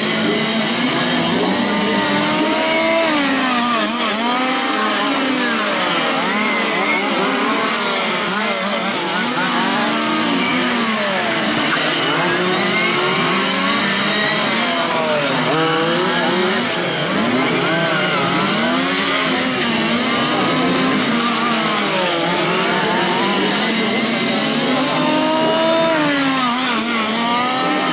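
Several 1/5-scale radio-controlled race cars' small two-stroke petrol engines racing together, revving up and down as they lap the track. Many overlapping whines keep rising and falling as the cars accelerate out of corners and brake into them.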